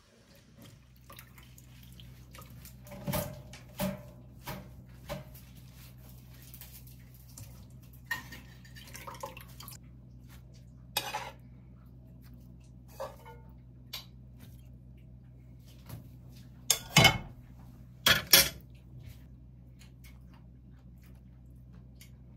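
Dishes and kitchen utensils clinking and knocking now and then, with two louder clatters about three-quarters of the way through, over a steady low hum.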